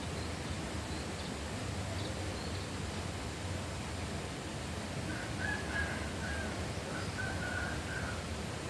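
Countryside nature ambience: a steady hiss of background noise, with a bird calling in short runs of quick notes about five seconds in and again near the end.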